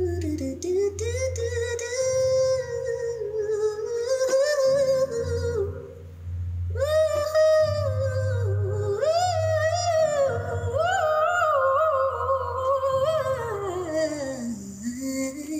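A woman's voice singing wordless, gliding vocal runs over a low bass line from a backing track, with a short break about six seconds in.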